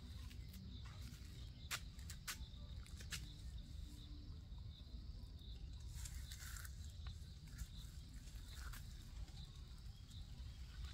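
Quiet outdoor ambience: a faint high-pitched chirping repeats steadily over a low rumble, with a few sharp clicks in the first three seconds. About six seconds in there is a brief rustle as the mango branch overhead is grabbed.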